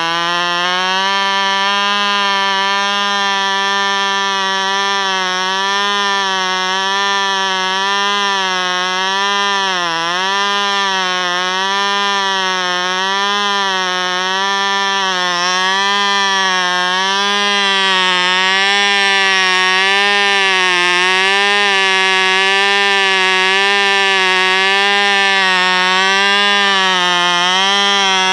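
Cox .09 Medallion two-stroke glow engine running with a high-pitched whine, its pitch wavering up and down every second or so, with a deeper dip about ten seconds in.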